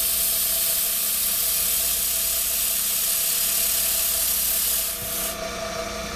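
Air-driven mist coolant sprayer hissing at the drill on a vertical milling machine, over the steady hum of the spindle motor; the hiss cuts off about five seconds in.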